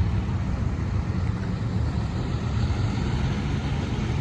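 Steady low rumble of motor-vehicle engines and traffic.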